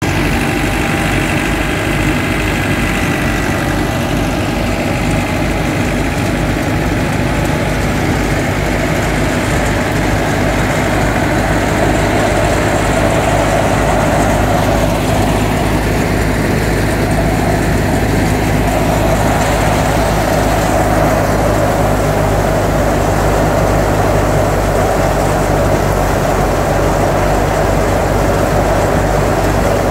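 Massey Ferguson 375 tractor's diesel engine running steadily at a constant speed, powering a wheat thresher, with the thresher's drum and fan running as wheat straw is fed in.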